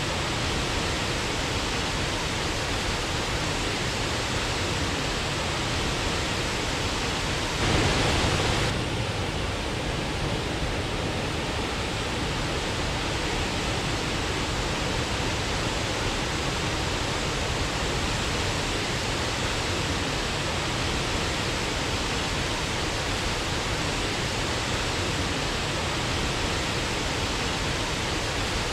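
Waterfall rushing as a steady, even roar of falling water, with a brief louder surge about eight seconds in.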